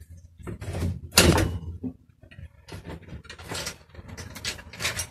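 Knocks and rattles of a BMX rear wheel being worked out of the frame's dropouts by hand, a string of short metal clunks, loudest about a second in.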